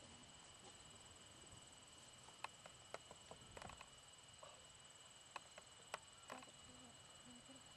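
Near silence: a faint steady high-pitched tone, with about ten short sharp clicks scattered through the middle few seconds.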